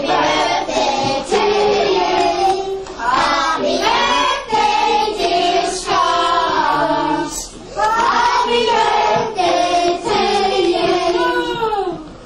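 A group of children singing a birthday song together around a cake with lit candles, in sung phrases with a short pause about halfway through.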